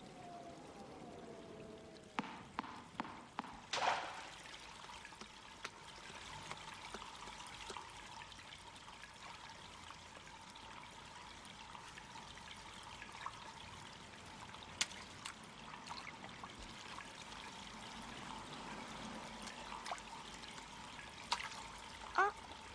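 Faint, steady running water, with a quick run of about five clicks about two to four seconds in.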